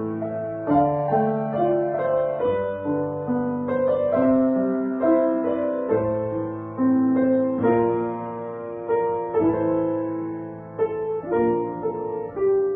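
Upright acoustic piano played solo: a slow melody over held lower notes, each note struck sharply and then fading as it rings.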